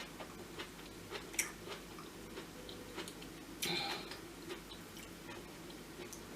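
A person quietly chewing food, with scattered faint clicks and one brief louder rustle a little past halfway.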